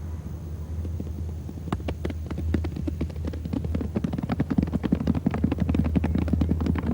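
A group imitating rain with their hands: sharp scattered clicks start about a second and a half in and grow denser and louder, like raindrops building toward a shower, over a steady low rumble.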